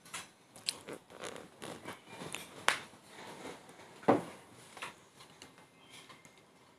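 A series of irregular clicks, taps and rustles, with two louder knocks about two and a half and four seconds in.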